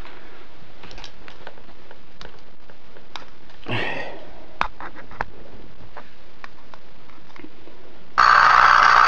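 A homemade Tesla coil switches on about eight seconds in: a sudden, loud, steady buzz of sparking that keeps going. Before it there are only scattered faint clicks and a brief rustle.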